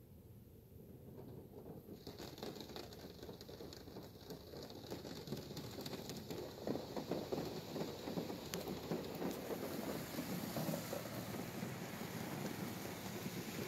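Touch-free car wash water jets spraying onto the car's body and glass, heard from inside the cabin as a dense patter like heavy rain. It grows louder from about two seconds in.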